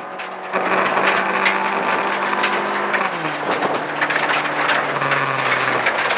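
Toyota RAV4 rally car's engine under hard throttle at stage speed, heard from inside, with gravel noise and stones clicking against the underbody. It gets louder about half a second in, and its pitch drops about three seconds in.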